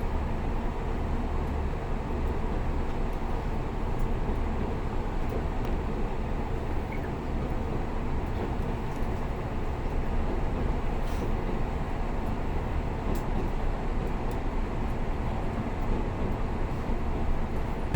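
Steady running noise inside the passenger cabin of the Resort Yamadori, a converted 485-series electric train: an even low rumble with a few faint clicks scattered through it.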